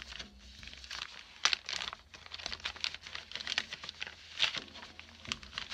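Clear plastic packaging of a cross-stitch kit crinkling and rustling as it is handled, in irregular crackles, with louder ones about a second and a half in and again past four seconds.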